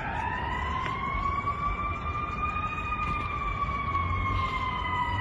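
Emergency vehicle siren wailing: its pitch climbs over the first second, holds, then slowly falls near the end, over a steady low rumble.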